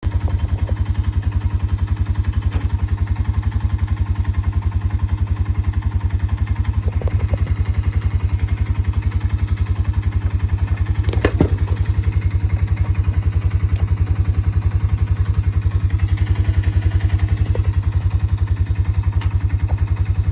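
Honda FourTrax 300 ATV's single-cylinder four-stroke engine idling steadily with an even, fast pulse, freshly filled with new oil. A short knock sounds about halfway through.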